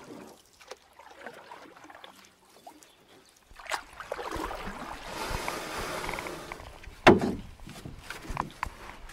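Kayak paddle strokes: water splashing and dripping off the paddle blades with small clicks. There is a louder wash of water and rumble through the middle, and a single sharp knock about seven seconds in, the loudest sound.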